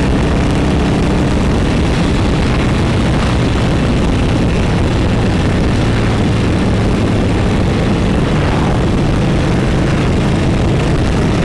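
Cruiser motorcycle's engine running steadily at road speed, with wind rushing past.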